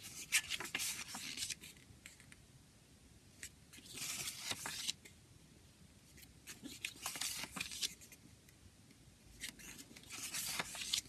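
Pages of a paper CD booklet being turned by hand, the paper rustling and rubbing against paper. This happens four times, about every three seconds.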